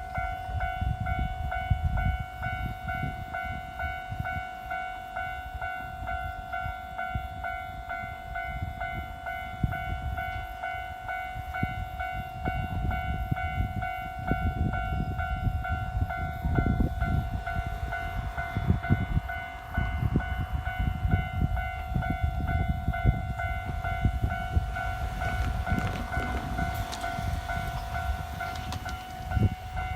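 Japanese railway level crossing alarm ringing on and on, its electronic bell tone repeating evenly, over a loud uneven low rumble.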